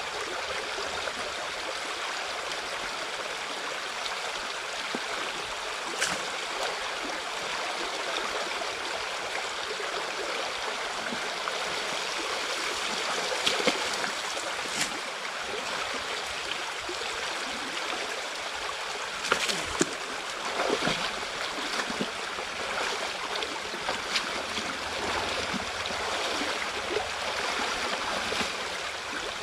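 Water rushing steadily through a beaver dam, with a few splashes or knocks scattered through it, the loudest about twenty seconds in.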